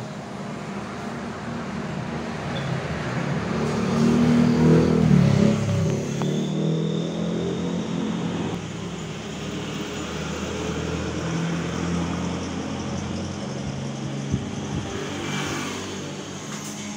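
A motor vehicle engine running steadily, swelling louder about four to six seconds in, with a small knock a little before the end.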